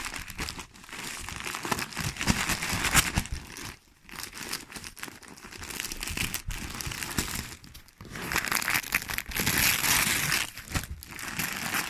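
Wrapping paper being torn and crumpled as a present is unwrapped, in bouts of rustling and crackling with brief pauses about four and eight seconds in.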